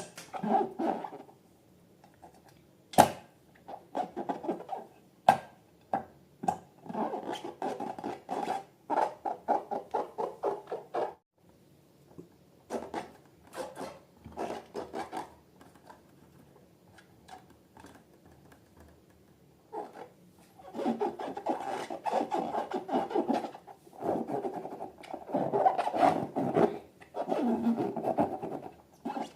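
Slime being squished and worked by hand, in bursts of crackly, sticky squishing. There are two sharp clicks in the first few seconds and a long pause near the middle.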